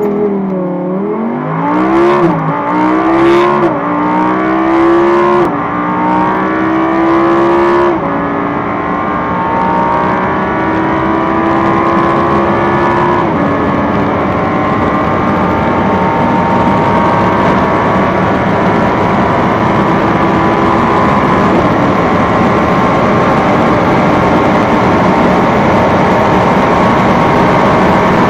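Audi R8 V10 Plus's 5.2-litre V10 at full throttle from a launch-control start, revving up through first to seventh gear. The pitch climbs steadily and drops suddenly at each of six upshifts, which come further apart as speed builds. Heard from inside the cabin, a steady rush of wind and road noise grows under the engine toward the end.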